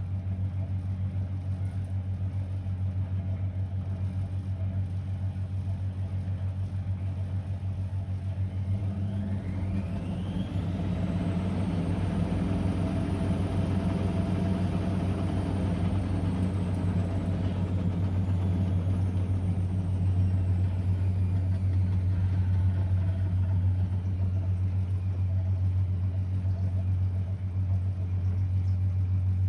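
Blomberg WA391 washing machine running with a steady low hum; about nine seconds in the drum motor whines up in pitch, holds, then winds back down, a short spin during the wash cycle.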